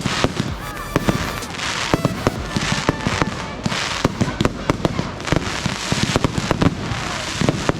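Fireworks display going off: many sharp bangs and crackles in quick succession, overlapping one another without a pause.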